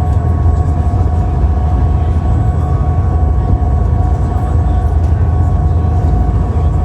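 Steady, loud low rumble of a running vehicle or vessel, with a couple of constant whining tones over it.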